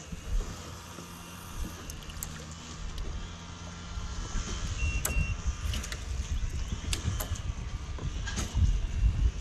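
String trimmer (weedeater) running with a whining motor note.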